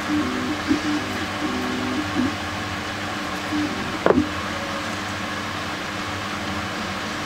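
A steady mechanical hum with a low drone that steps back and forth between two close pitches during the first couple of seconds, and one short sharp click about four seconds in.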